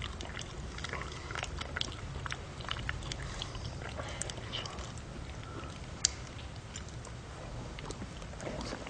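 A person biting and chewing a peeled banana: a run of small, wet mouth clicks and crackles, with one sharper click about six seconds in.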